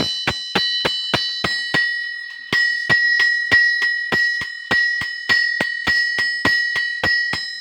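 Blacksmiths' hammers striking in turn on an anvil, about three blows a second, each blow leaving a high metallic ring. The hammering breaks off briefly about two seconds in, then picks up again in the same rhythm.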